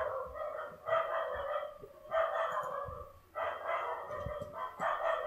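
An animal calling repeatedly in the background: five pitched calls, about a second apart.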